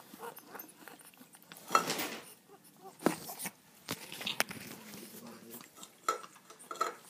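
Scattered clinks and knocks of a metal cat-food tin on a wooden sill as cats eat from it and nudge it about, the loudest knock about two seconds in.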